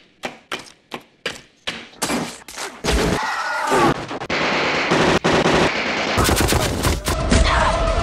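A run of about half a dozen sharp stabs of an ice pick into a block of ice, then, from about two seconds in, a long, continuous burst of heavy automatic gunfire.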